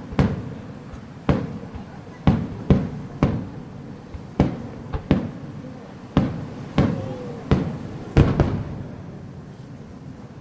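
Aerial firework shells bursting: about a dozen sharp booms in quick, irregular succession, each trailing off in a rumbling echo. The bursts stop about eight seconds in.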